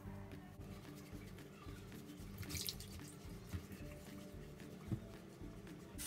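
Soft background music with faint splashing of water as hands rub and wash sweet potatoes in a bowl of water.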